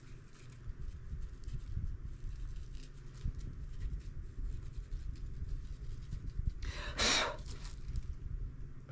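A fine paintbrush dabbing and scratching shimmer powder onto air-dry clay, faint, over a low steady rumble. About seven seconds in there is one short hiss of noise.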